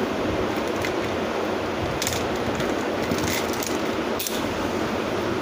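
Steady background noise with a few faint clicks, as multimeter probes touch the battery contacts of an opened AirPods charging case.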